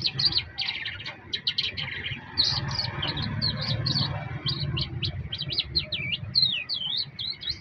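A songbird singing a rapid, unbroken string of varied high chirps and slurred notes.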